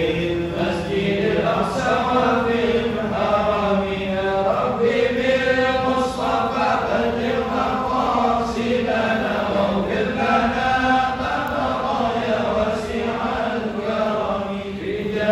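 A congregation chanting Arabic devotional verses together in unison, in long drawn-out melodic lines without a break.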